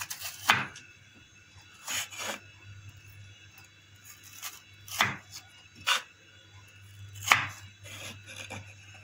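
Crinkle-cut knife chopping down through raw potato onto a wooden cutting board: about six separate, unevenly spaced chops, the loudest about half a second in and again near the end.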